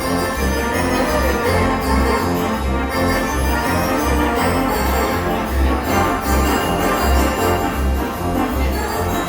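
Music with a steady bass beat of about two pulses a second under sustained instrumental parts.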